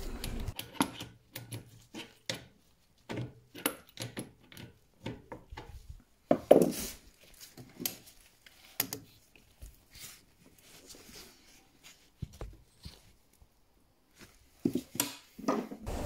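Irregular metallic clicks, clinks and knocks of an adjustable spanner working the brass isolation valves and copper pipework under a combi boiler, as the flow, return and gas valves are turned off.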